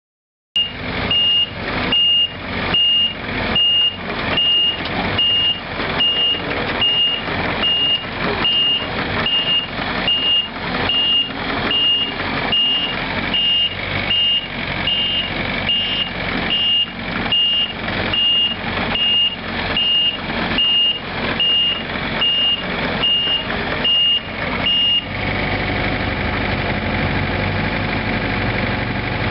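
A John Deere 50 ZTS mini excavator's Isuzu four-cylinder diesel running, with its travel alarm sounding a high beep about once a second. About 25 seconds in, the beeping stops and the diesel runs on steadily.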